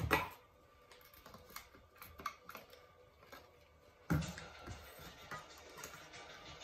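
Shopping being unpacked from a fabric bag onto a countertop: light rustling and small clicks, with a thump about four seconds in as a plastic spray bottle is set down on the counter.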